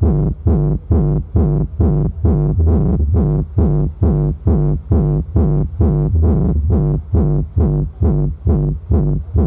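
Electronic dance music with a heavy bass beat played loud through a large outdoor sound system with 30-inch bass speakers. The beat pulses steadily, about two and a half times a second.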